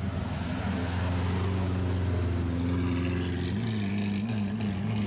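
Lamborghini Aventador's V12 running steadily as the car rolls past at low speed, then revved up and down several times about three and a half seconds in as it pulls away.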